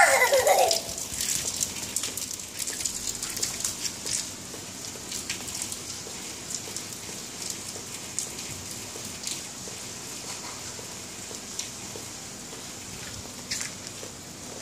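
Rain falling on a rooftop: a steady hiss of rain with many small drop ticks throughout. Right at the start, a brief high-pitched vocal cry that rises and falls stands out above the rain.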